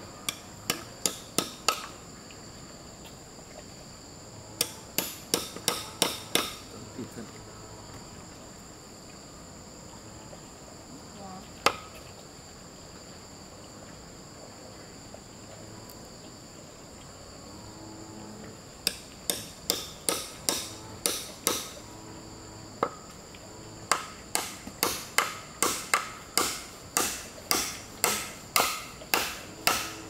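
Hammer driving nails into upright wooden planks: runs of sharp, ringing strikes about two a second, with pauses between the runs and a long unbroken run near the end. A steady high insect drone runs underneath.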